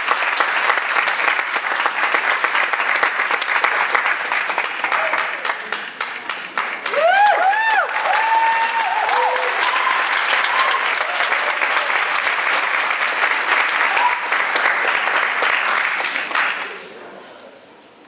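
Theatre audience applauding, with a few voices calling out about seven seconds in. The clapping stops suddenly near the end.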